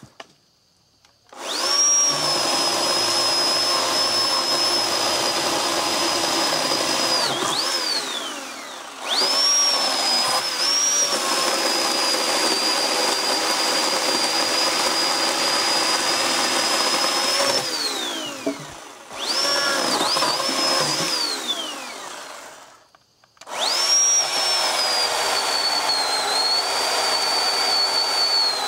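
Oregon 40V cordless electric chainsaw with a high-pitched motor whine. It spins up and winds down four times on the trigger: three long runs and one short one. In the last run the pitch sags slightly as the chain cuts into a log.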